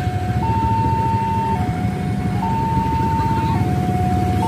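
Railway level-crossing warning alarm sounding its two-tone signal, a higher and a lower tone taking turns about once a second, which warns that a train is coming and the barriers are down. A vehicle engine runs low beneath it.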